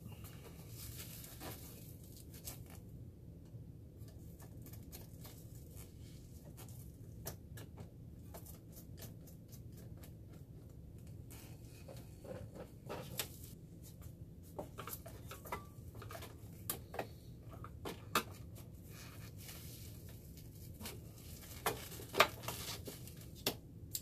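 Scattered small clicks, taps and scrapes of hands working inside a steam humidifier's plastic housing: loosening the hose clamp on the steam hose at the top of the tank and pulling off the wire connectors. A few sharper clicks come in the second half.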